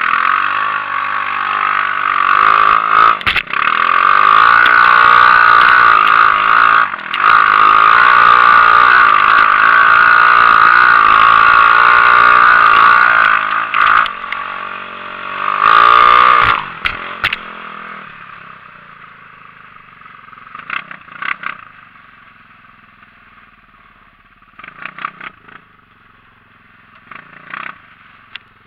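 Engine of a 250 cc Xinling off-road buggy, heard from on board, revving hard under load for about the first seventeen seconds with a few brief dips as the throttle is lifted, then dropping to a much quieter low-speed run. Through the quieter part the chassis gives a few short clattering knocks.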